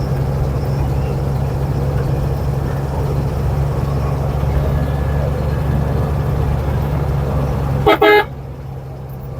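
Bus engine droning steadily, with a short double blast of a vehicle horn about eight seconds in; after it the drone drops somewhat quieter.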